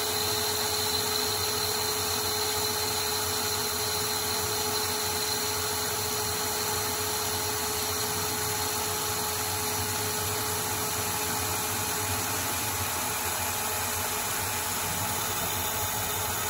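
Proto-Trak CNC lathe running at 340 RPM as a carbide insert takes light facing passes on a D2 tool steel part. Spray-mist coolant hisses steadily over an even hum from the machine's drive.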